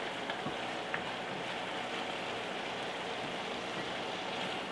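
Ground beef picadillo with potatoes and raisins sizzling steadily in a cast-iron skillet on lowered heat as it is stirred with a wooden spoon, with a few light clicks of the spoon early on.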